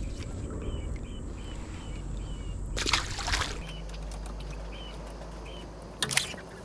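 Water splashing in two short bursts, about three seconds in and again near the end, over a steady outdoor background with a short high chirp repeating.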